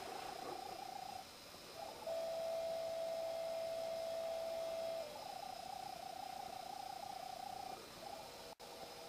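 A single sustained tone that wavers and pulses around one pitch. It breaks off briefly about a second in, holds steady and louder for about three seconds, then wavers again.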